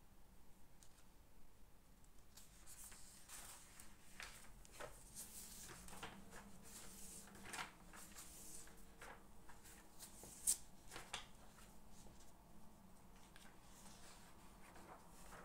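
Faint writing on paper: short scratchy strokes in a quiet room, busiest in the middle, with one sharper click or tap about ten seconds in.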